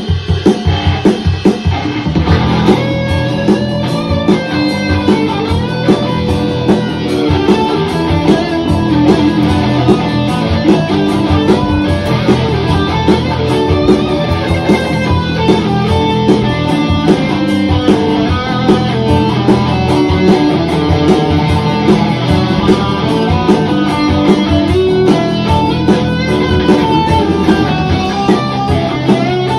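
Electric guitar played along with a backing track with drums, heard over studio monitor speakers. Drum hits open it, and the guitar joins about two seconds in.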